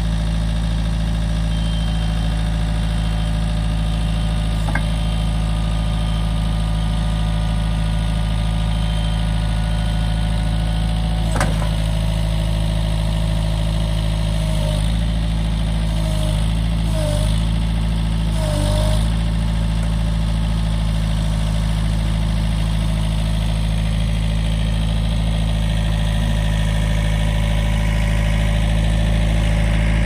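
Backhoe engine running steadily, with a sharp knock about eleven seconds in and the engine note dipping several times soon after as it works.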